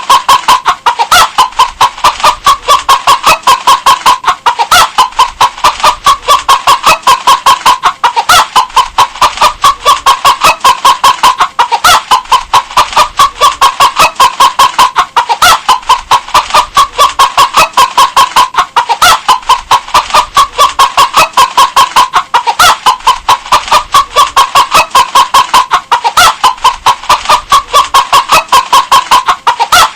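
Hen clucking in a rapid, unbroken run of short clucks. The same stretch of calls repeats about every three and a half seconds.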